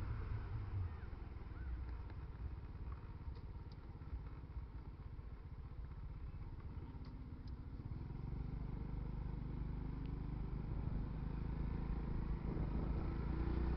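Motorcycle riding, heard from a helmet-mounted camera's microphone: a low engine rumble with wind and road noise, getting louder about eight seconds in.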